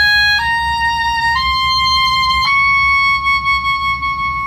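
Oboe playing a rising D-flat scale in the high register, stepping up three times and holding the top note, the high D flat, for about two seconds to check its tuning after a key adjustment.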